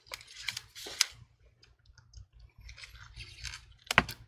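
Gloved fingers working a laptop's battery cable connector free from the motherboard: small plastic clicks and rustling, with a few sharp clicks in the first second and another near the end.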